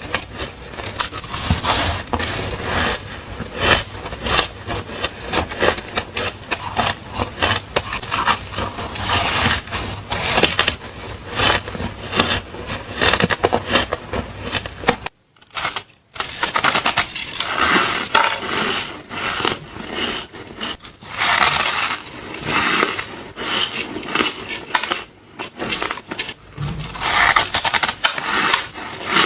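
Ice being bitten and chewed close to the microphone: dense, sharp cracking and crunching, with a brief silent gap about halfway through.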